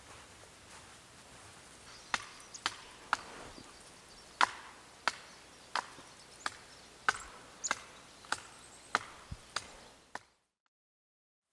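A steady series of sharp wooden knocks, about one every two-thirds of a second, starting a couple of seconds in. About a dozen in all, then the sound cuts off to silence near the end.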